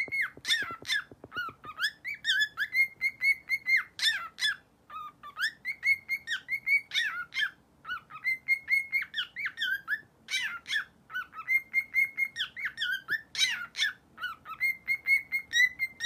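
Cockatiel singing a whistled song. Each phrase is a run of quick rising and falling whistles ending in a few level held notes, and the phrase repeats over and over with short breaks.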